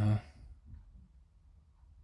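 A man's voice finishing a word at the very start, then faint room tone with a low hum.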